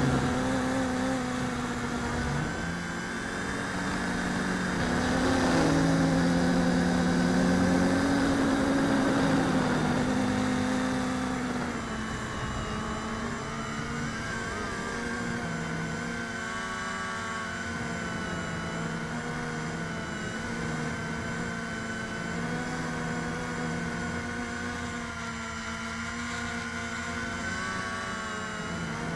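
RC Logger Xtreme quadcopter's motors and propellers whirring in flight, the pitch wavering as the throttle changes. It is louder for the first ten seconds or so, then steadier and somewhat quieter. The quad is flying on 138 mm props, three of them cracked, with its rear left motor bent well out of line.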